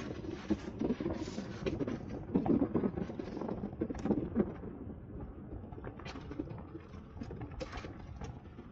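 Bicycle riding over a rough concrete path: tyre rumble with irregular knocking and rattling, easing to a quieter, smoother rumble about five seconds in.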